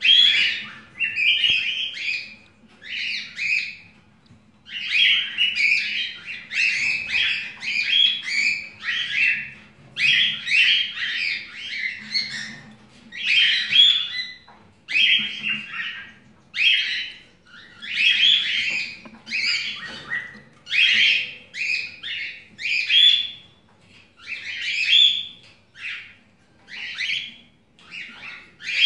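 Cockatiel chicks giving raspy begging calls in quick repeated bursts, one to two a second, while the mother cockatiel feeds them.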